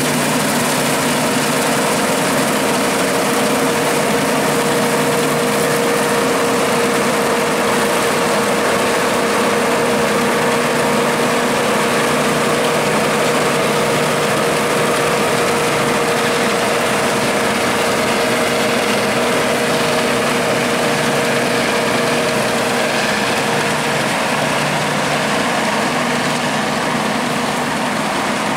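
Bizon Rekord Z058 combine harvester at work cutting oats: its six-cylinder diesel engine and threshing gear running steadily under load, with a steady whining tone over the hum that drops out near the end, as the machine grows slightly fainter moving away.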